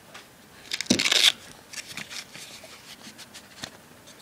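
Hands rummaging for and handling small objects: a short, loud rustling scrape about a second in, then scattered light clicks and rubbing.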